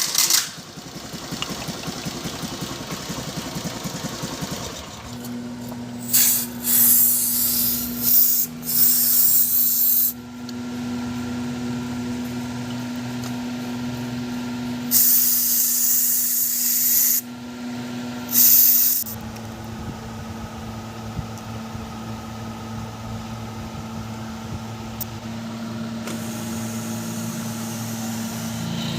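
Honda Activa HET scooter's small single-cylinder four-stroke engine running at a steady idle, broken twice by loud bursts of hissing like a spray or air jet.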